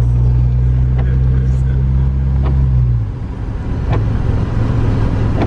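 A car driving, its engine and road noise making a steady low hum that dips briefly about three seconds in, with faint knocks about every second and a half.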